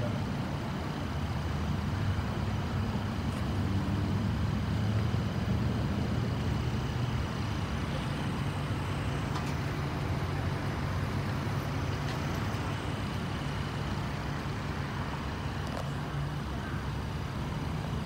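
Steady low rumble of idling vehicle engines and road traffic.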